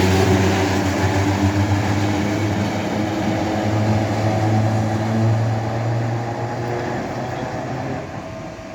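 Railcar no. 30 pulling away with a steady drive hum and squealing wheels, the sound fading as it moves off.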